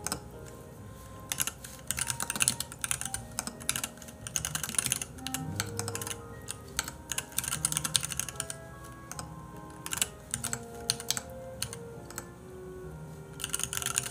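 Typing on a computer keyboard: irregular runs of quick key clicks with short pauses between them, over soft background music.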